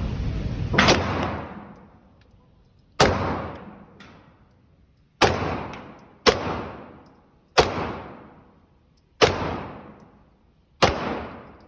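Seven single gunshots of slow, aimed fire, spaced one to two seconds apart, each trailing off in a long echo.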